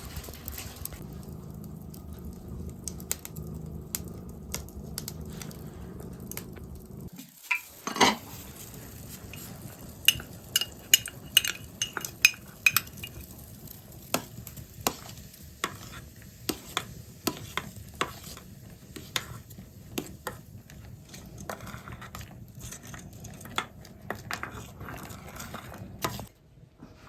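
Metal utensil clinking and knocking against a pot or pan, many sharp clicks over a steady sizzling hiss, with one loud knock about eight seconds in.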